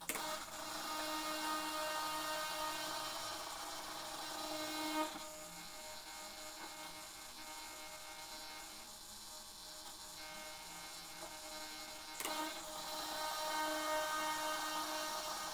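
Electric servos in a P-38 Lightning model's wing whining as they drive the Fowler flaps in. The whine drops to a quieter buzz while they hold. After a click about three quarters of the way through, it rises again as the flaps run back out and down.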